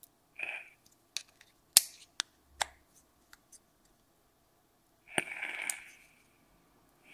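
A few sharp clicks and taps as the magnetic plexiglass door is snapped onto a LOKI Huginn mechanical squonk box mod, the loudest about two seconds in. About five seconds in, a click and then a short breathy rush of vapor being exhaled.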